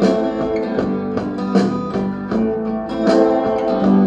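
Guitar music with plucked notes in a steady rhythm, most likely the test track playing through the 60 W mono amplifier board being demonstrated.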